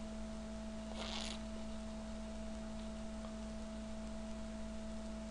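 Steady electrical hum with two constant tones, one low and one higher, over faint hiss, with a short hissy burst about a second in.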